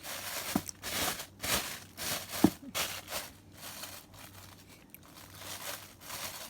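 Packaging being handled and opened: irregular crinkling and rustling with a sharp knock about two and a half seconds in, quieter over the last few seconds.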